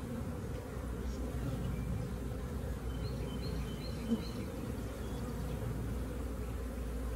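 A honeybee swarm buzzing steadily around an opened hive box as its frames are lifted out.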